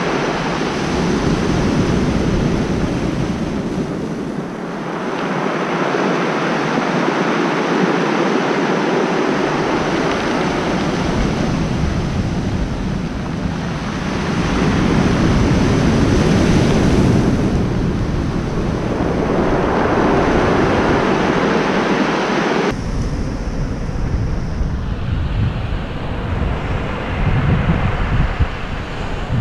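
Ocean surf breaking and washing up a steep cobble beach, swelling and fading every few seconds, with wind buffeting the microphone. About 23 seconds in the sound changes abruptly and the low wind rumble grows stronger.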